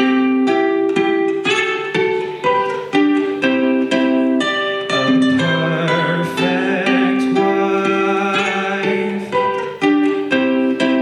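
Instrumental break in an acoustic song: a plucked string instrument picks a melody over chords, with a new note about every half second.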